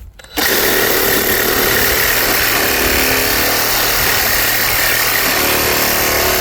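Sawzall reciprocating saw starting up about half a second in and running steadily, its blade cutting through the rubber of a blown-out car tire.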